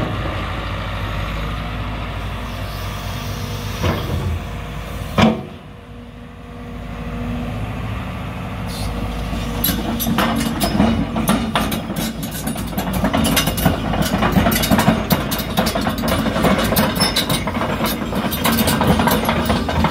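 JCB JS220X tracked excavator running, its diesel engine humming steadily until a sharp clunk about five seconds in. The engine note then drops, builds back up, and from about halfway through a dense metallic clattering and clanking from the working machine rides over it.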